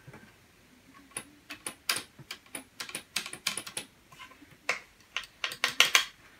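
Irregular light clicks and taps from hands handling the opened 8-track recorder's chassis and tape mechanism, starting about a second in and coming thicker and louder near the end.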